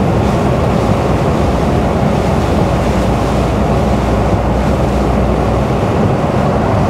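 Steady in-cab drone of a Mercedes Actros lorry cruising on a wet road: low engine hum under a constant rush of tyre and spray noise.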